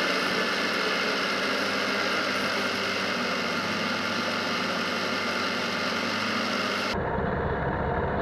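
Polaris Sportsman 570 ATV's single-cylinder engine running steadily at road speed, mixed with a loud rush of wind and tyre noise. About seven seconds in, the sound changes suddenly: the high hiss drops out and a deeper rumble takes over.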